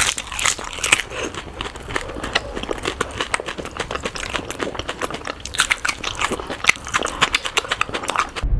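Close-miked mukbang eating sounds played at double speed: rapid, irregular crunchy bites and chewing. Right at the end it cuts to a sudden loud, low rumble.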